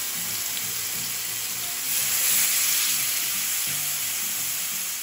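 Marinated chicken breast fillets sizzling in hot oil in a nonstick grill pan. The sizzle swells about two seconds in as a second fillet is laid into the pan with tongs.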